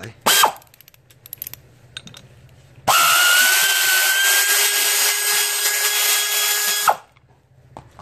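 Power tool driving a socket on the center nut of an air-conditioning compressor's clutch hub. It gives a short burst near the start, then about four seconds of steady running with a slightly rising whine, which cuts off sharply. This spins off the nut that holds the clutch plate.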